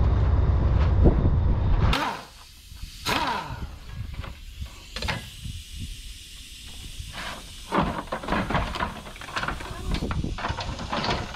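A loud low rumble, which cuts off about two seconds in. Then come scattered scrapes, clicks and rattles of bent metal and plastic panels being handled on a crash-damaged truck front.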